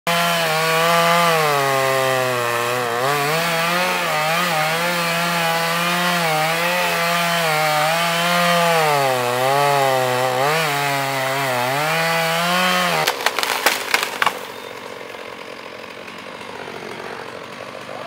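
Two-stroke petrol chainsaw cutting through a thick tree trunk, its engine note dipping and rising as the chain bites into the wood. About 13 s in, the cut section breaks away with a burst of sharp cracks and snapping branches, and the sound then drops much quieter.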